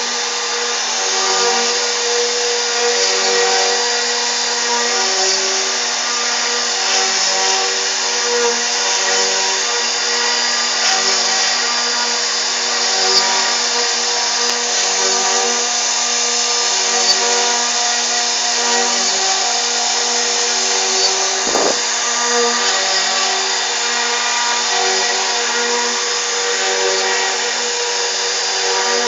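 CNC router spindle running and cutting steadily, with a constant whine over a hiss and a low pulse about once a second as the tool moves through its passes.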